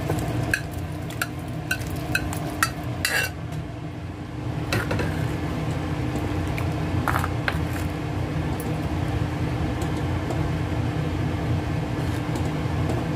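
Metal utensils clinking and scraping against a clay pot as cooked cucumber pieces are tipped in from a pressure cooker and stirred with a ladle into the boiling sambar. The clinks come about twice a second for the first three seconds, then only now and then, over a steady low hum.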